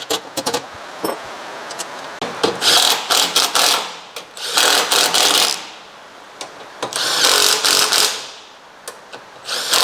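Power driver running bolts in, in three bursts of about a second each, a second or two apart, after a few sharp clicks of metal parts being handled at the start.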